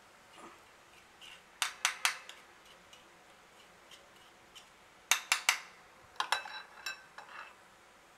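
Perforated metal boondi ladle being tapped to shake besan batter through its holes into hot oil: sharp metal clicks in two quick runs of three, then several more ringing taps near the end.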